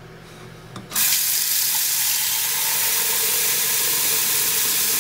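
Kitchen tap turned on about a second in, a steady stream of water splashing into a stoneware bowl in a stainless steel sink and filling it.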